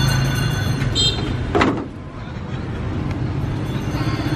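A motor vehicle engine running with a low, steady hum. About one and a half seconds in there is a brief whoosh falling quickly in pitch.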